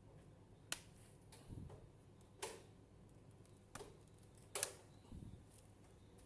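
Scattered sharp clicks and soft taps of small hard parts or tools being handled during laptop repair work: four crisp clicks a second or more apart, the loudest about four and a half seconds in, with a couple of duller knocks between them.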